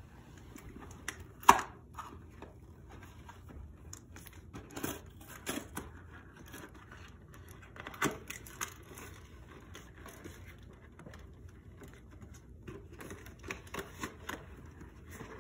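Cardboard clicks, taps and rustles as fingers press and pick at the small perforated doors of a Harry Potter Hogwarts Christmas pop-up advent calendar, scattered and irregular, the sharpest click about one and a half seconds in.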